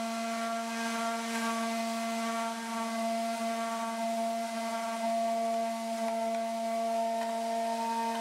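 Electric random orbit sander running at steady speed with an even whine, its pad sanding a pine box.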